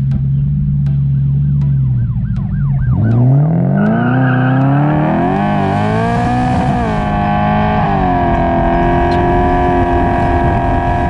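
Car engine idling, then revving up about three seconds in, rising and dipping, and held steady at high revs.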